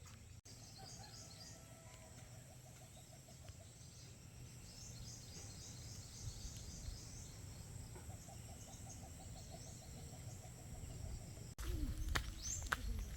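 Faint outdoor ambience of birds chirping, with a short repeating trill heard twice. Near the end it cuts to a louder stretch of sharp, falling high chirps over a low rumble.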